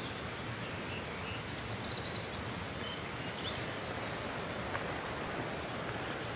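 Steady rushing hiss of a shallow stream running over stones.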